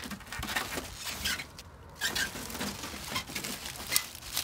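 Leaves and thorny stems of a dense bush rustling and crackling as a gloved hand pushes through it, with a sharp click about four seconds in.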